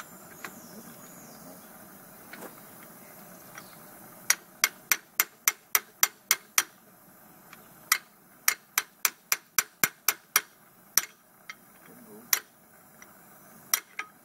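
Hammer blows, sharp and ringing: a quick run of about nine at roughly four a second, a short pause, a second run of about ten, then a few single strikes.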